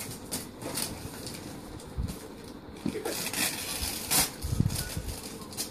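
Gift-wrapping paper tearing and crinkling as a present is unwrapped by hand, with a few sharp rips, the loudest about four seconds in.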